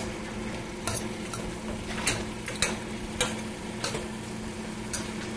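Mushrooms, artichoke hearts and chicken sizzling in a stainless sauté pan with reducing white wine, while a utensil is pushed through them, giving irregular taps and scrapes against the pan about every half second to a second.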